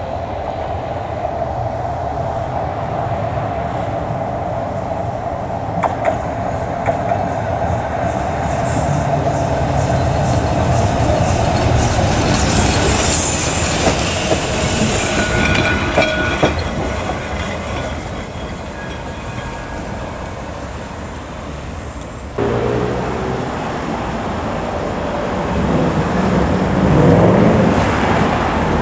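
Electric tram running along its rails: steady running noise with a whine from the motors and clicks of the wheels over the rail joints, and a hissing about halfway through.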